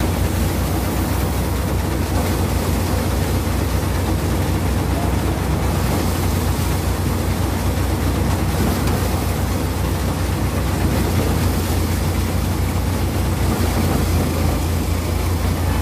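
A Dashmesh paddy thresher driven by a Massey Ferguson tractor runs steadily while paddy is fed through it. It makes a loud, constant low drone with a rushing noise over the top.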